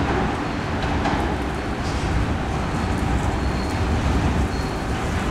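Light-rail train pulling away through a tunnel, a steady low rumble of wheels and motors that echoes off the tunnel walls and eases off slightly as it recedes.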